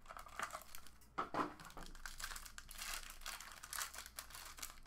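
Crinkly plastic wrapping on a trading-card mini box being torn open and crumpled by hand, an irregular run of crackles.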